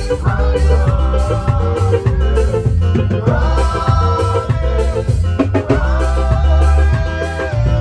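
Live church worship band playing a hymn: a driving drum and percussion beat over heavy bass, with long held melody notes.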